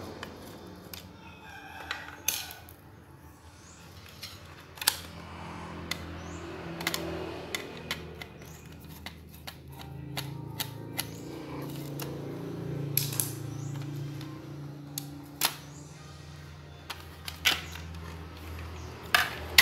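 Scattered sharp clicks and taps of a screwdriver and hands on a satellite decoder's plastic case and circuit board as the mainboard is unscrewed and lifted out, over a faint low hum.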